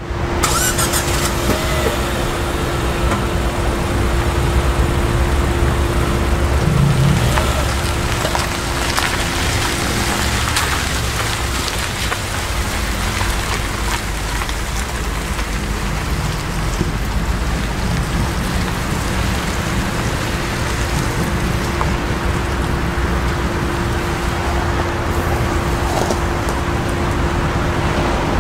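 Steady outdoor noise of light rain with wind buffeting the microphone, and a faint steady hum underneath.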